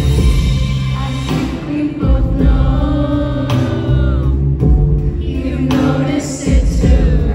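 A woman singing live into a microphone over music with heavy, sustained bass, as heard at a concert venue.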